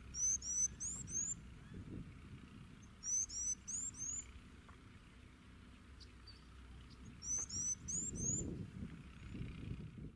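A small songbird singing three short phrases, each of about four quick rising chirps, spaced roughly three to four seconds apart, over a low background rumble.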